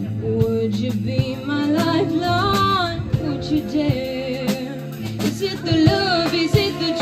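Live psychedelic jazz band playing: drum kit with frequent cymbal and drum hits under bass and guitars, with a lead melody line sung or played with vibrato.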